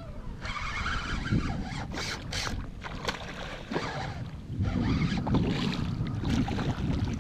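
Wind buffeting the camera microphone in a low rumble, with water splashing several times as a hooked redfish thrashes at the surface beside the kayak.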